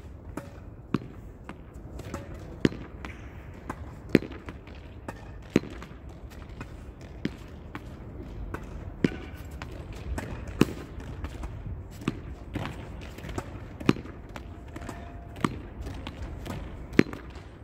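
A ball being hit against a wall over and over: a sharp strike about every one and a half seconds, with softer knocks of the ball between strikes.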